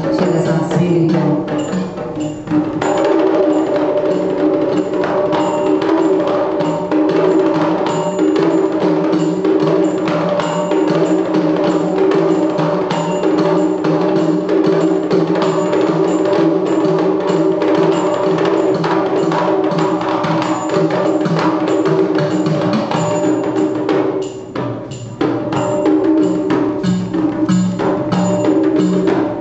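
Kerala temple drums, the mizhavu copper pot drums and the edakka hourglass drum, playing a steady rhythm of sharp, regular strokes over sustained pitched tones, with a brief drop in loudness about four-fifths of the way through.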